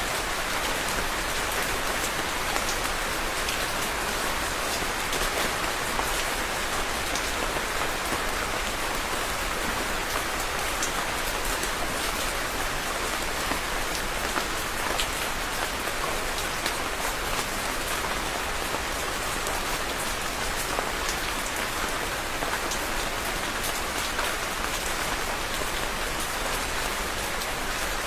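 Steady rain falling on a surface: a constant hiss of rainfall with many distinct drop ticks.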